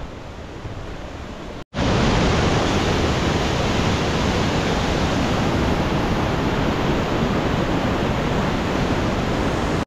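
Fast glacier-fed mountain stream rushing over rocks, heard close: a loud, steady roar of white water. For about the first second and a half a quieter steady rush comes from further off, then after a short break the full roar of the torrent starts.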